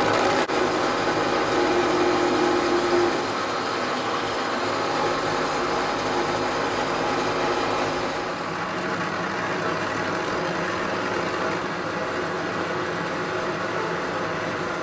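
A power tool's motor running steadily, its tone shifting slightly about three seconds in and again around eight seconds.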